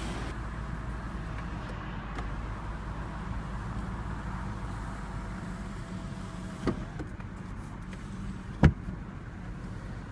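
Power sunroof motor of a 2014 Lexus GS350 driving the glass panel with a faint steady whine that stops about six and a half seconds in, then two clicks, the second louder. A steady low hum runs underneath.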